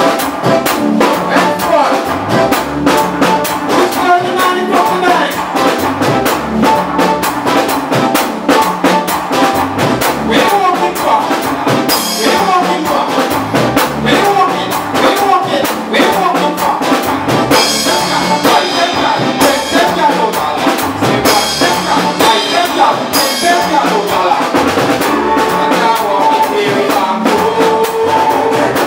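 Soca band playing, a drum kit driving a fast, steady beat under the rest of the band. The top end brightens in several short stretches in the second half.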